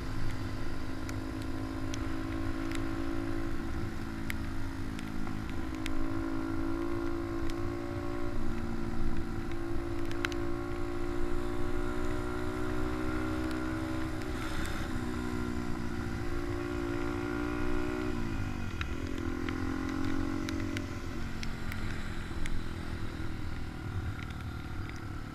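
Small single-cylinder motorcycle engine of a Honda Dax minibike running steadily under way. Its pitch drops sharply about eighteen seconds in as it slows, then picks up again.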